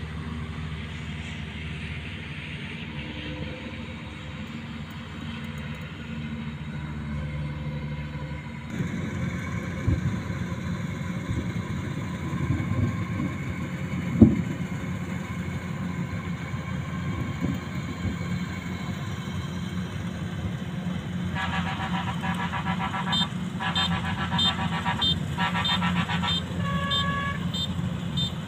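Combine harvester's engine running at a steady drone, with one sharp thump about halfway through. Near the end comes about six seconds of rapid, repeated beeping tones.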